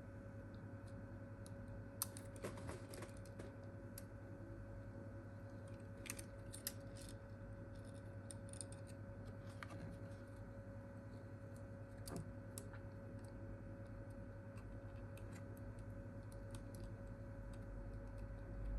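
Faint, scattered small clicks and taps of tools and plastic phone parts being handled, a few at a time, over a steady electrical hum.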